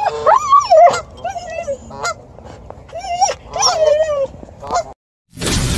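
Husky whining and yowling in a run of drawn-out, wavering calls that slide up and down in pitch, an excited reaction to geese and goslings. The calls stop just before the end, and loud music cuts in.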